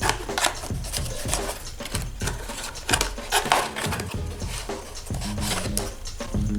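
Cardboard box and packaging being opened and handled: a run of short, irregular rustles, scrapes and taps.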